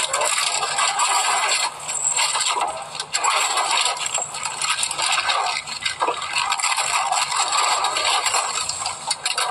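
Rattling, rustling and scraping of groceries being handled at a checkout counter, heard as hissy old film sound replayed through a TV speaker. The noise comes and goes, dipping briefly a few times.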